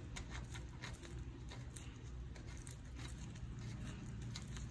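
Faint, irregular small clicks and rustling as a gloved hand turns a castle nut onto the front wheel spindle to lock in the freshly greased wheel bearings.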